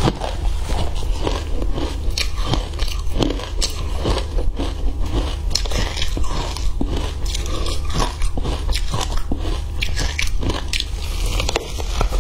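Crushed matcha ice being bitten and chewed, a dense run of irregular crisp crunches and cracks.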